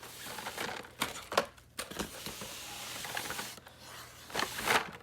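Rustling and crinkling handling noise with several sharp clicks, loudest about a second in and again near the end.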